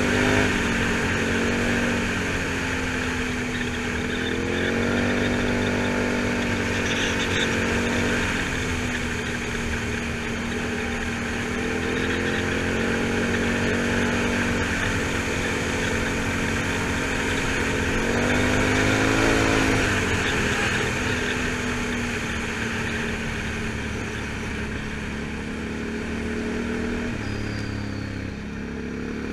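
Can-Am Outlander 1000 XT-P ATV's V-twin engine running under way, its revs rising and falling about three times and dropping briefly near the end, over steady road and wind noise.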